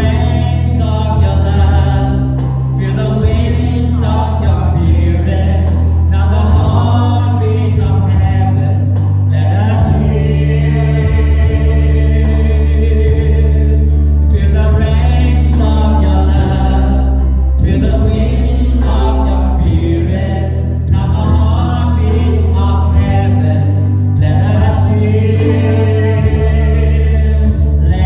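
Worship band and group of singers performing a contemporary worship song: voices together over sustained bass notes that change every few seconds, with a steady beat on cymbals.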